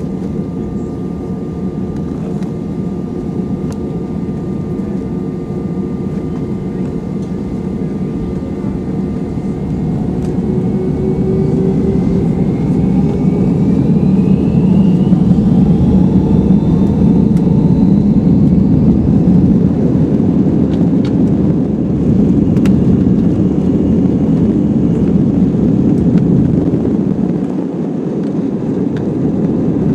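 Airbus A319-131's IAE V2500 engines spooling up to takeoff thrust, heard from inside the cabin over the wing. A rising whine comes about ten seconds in, then the engines run loud and steady with runway rumble as the plane accelerates down the runway. Near the end the low rumble briefly drops.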